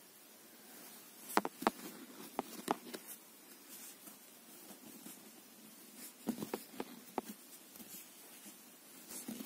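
Metal knitting needles clicking lightly against each other as stitches are worked in wool, a few soft clicks in two short clusters, about a second and a half in and again about six seconds in, over a faint steady hiss.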